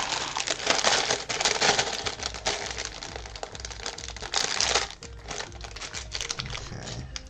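Plastic Lego parts bags crinkling loudly as they are handled and opened, with many sharp clicks of loose plastic pieces; about five seconds in the crinkling stops and only lighter scattered clicking goes on.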